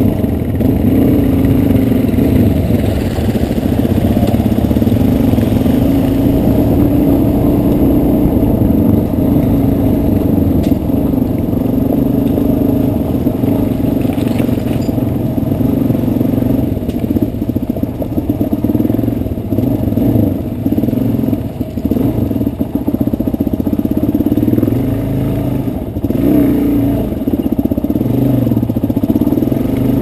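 Dual-sport motorcycle engine running and pulling the bike along a rocky riverbed, heard close from the bike's own camera. The engine pitch rises and falls with the throttle, easing off briefly a few times in the last third.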